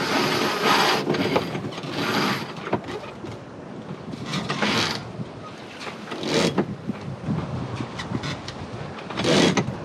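Sailboat deck gear and rigging working as the boat gets under way: irregular rushes of rope and hardware noise, five of them, over a steady background hiss.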